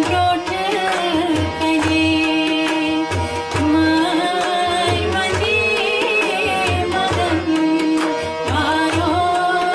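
Kashmiri song: tabla playing a steady rhythm of low drum strokes under a melody of long, held notes, with singing.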